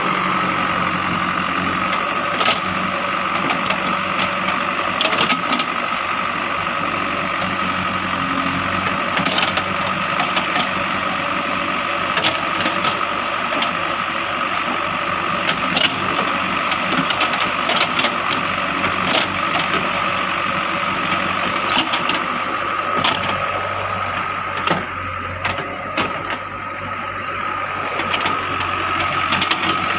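JCB 3DX backhoe loader's diesel engine running steadily, with a steady high whine over it and scattered sharp knocks. It goes briefly quieter a little before the end.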